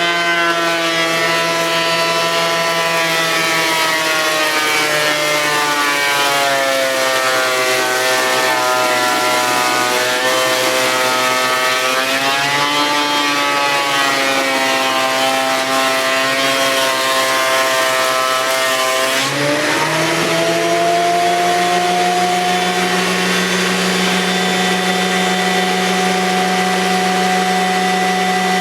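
Electric wood-planing machine running as pine boards are fed through it: a loud, steady motor whine whose pitch sags and wavers while it cuts, with a sudden drop about two thirds of the way in before it climbs back and settles higher.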